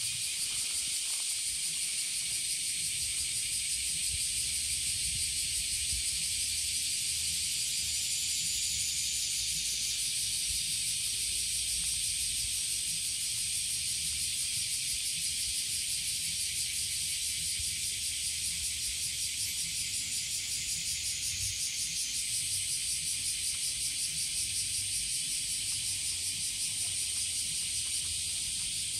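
A dense chorus of summer cicadas, a steady high-pitched buzzing hiss that never lets up.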